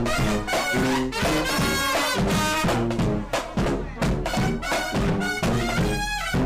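Music led by brass horns, in an upbeat swing-like style with a steady beat.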